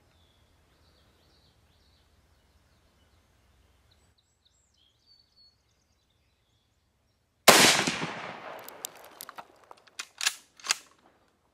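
A single rifle shot about seven and a half seconds in, with a long echoing tail, followed by several shorter sharp cracks over the next three seconds.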